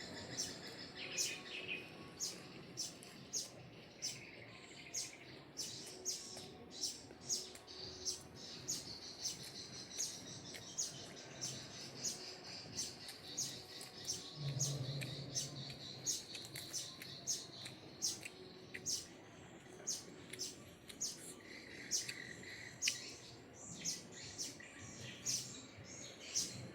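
Close-up chewing of crispy rice pancake (banh xeo): short, sharp crunches about twice a second.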